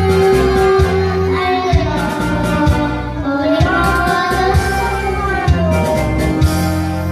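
Children's song music: a sung melody over an instrumental backing with a steady, even bass beat.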